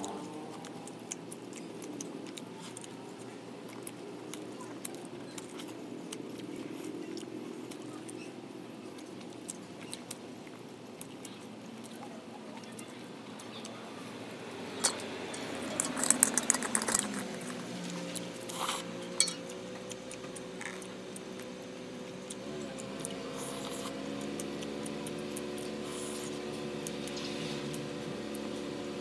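Eating by hand: faint chewing and mouth sounds, with scattered clicks. A cluster of sharp clicks and clatters about halfway through comes from bamboo satay skewers and metal dishes being handled. A low steady hum comes in during the second half.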